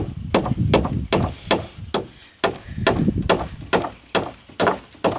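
Hammer driving U-shaped fence staples into a wooden post to fasten chicken wire: a steady run of about a dozen sharp strikes, roughly two and a half a second.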